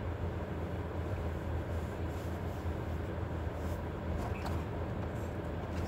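Steady low vehicle rumble heard inside a car cabin, with a few faint light clicks and rustles partway through.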